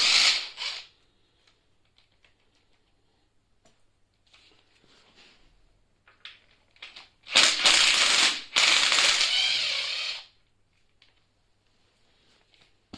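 Rapid mechanical clicking clatter of a wrench working the rear axle nuts of an e-scooter wheel: a burst fading out in the first second, then two bursts of about a second each around the middle, with scattered faint clicks in between.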